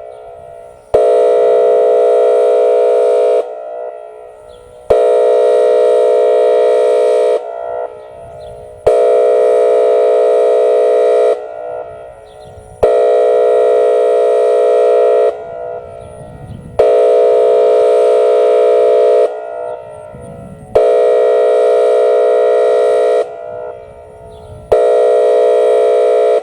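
Whelen WPS-2805 electronic outdoor warning siren sounding its 456 Hz Air Horn signal during a storm siren test. It gives a loud, steady horn blast about two and a half seconds long every four seconds, seven in all. Each blast starts suddenly and cuts off, leaving a trailing echo.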